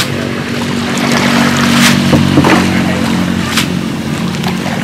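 Small boat's engine running steadily, with a couple of sharp knocks about two and three and a half seconds in.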